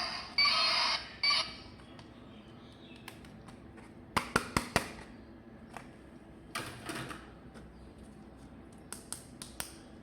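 An electronic sound effect from a battery-powered plastic toy stops in two short bursts within the first second and a half. Then come handling noises from plastic toy parts: a quick run of four sharp clicks about four seconds in, a brief scrape, and a few more clicks near the end.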